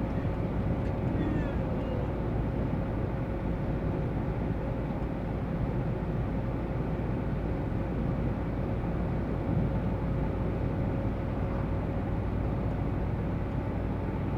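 Steady in-cab drive noise of a GAZ Sobol van: engine and road rumble with a faint steady whine.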